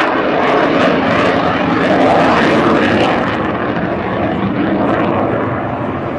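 F-16 Fighting Falcon's jet engine opened up to high power as the fighter flies away after a slow pass: a loud, dense rushing noise that eases a little and loses some of its hiss in the second half.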